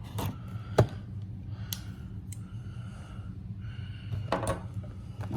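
Cardboard trading-card blaster box being opened and handled: scattered taps and rustling, with a sharp knock about a second in and a short crinkly flurry near the end, over a steady low hum.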